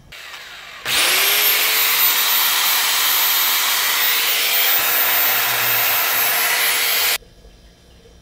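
A DeWalt DW862 marble saw switches on about a second in. Its motor whines up to full speed in a fraction of a second and runs free with no load at a steady high pitch for about six seconds, then stops abruptly.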